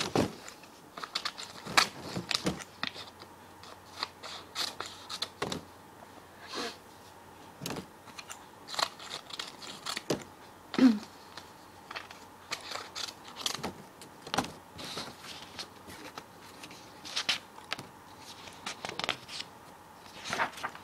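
Scissors cutting paper: irregular crisp snips and rustling of the paper, with short pauses between runs of cuts.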